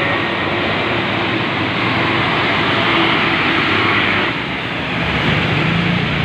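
Concrete mixer truck's diesel engine running as the truck drives close past, with a steady rush of tyres on the wet road.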